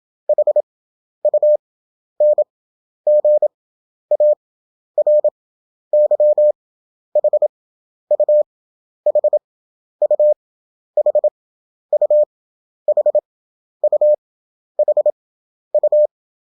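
Morse code practice tone: a single mid-pitched beep keyed in quick dots and dashes, one letter about every second. The characters are sent at 27 words per minute, with wide gaps between letters for an 11 words-per-minute effective speed.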